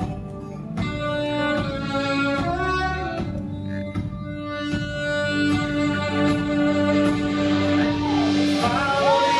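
Live band playing an instrumental passage: held notes over steady drum hits, with a wavering high line coming in near the end.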